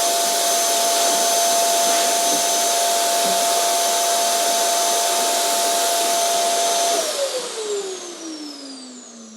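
Vacuum cleaner running steadily with a rushing air noise and a high motor whine, then switched off about seven seconds in, its motor winding down with a falling pitch as the sound fades.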